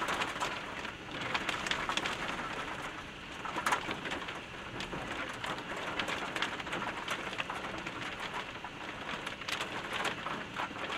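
Rain from a thunderstorm falling steadily, with many separate drops striking close to the microphone as sharp ticks.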